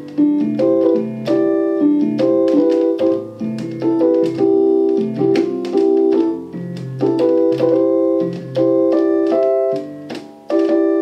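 Portable electronic keyboard played with both hands: sustained chords over a lower line of bass notes, changing every half second or so, with a few brief breaks between phrases.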